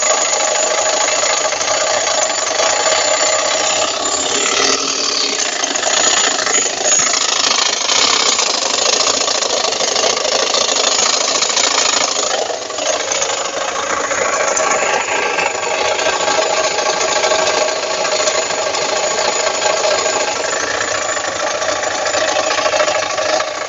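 Fiat Palio 1.5 8V Fiasa engine running steadily with a strange noise, which the owner thinks comes from the alternator.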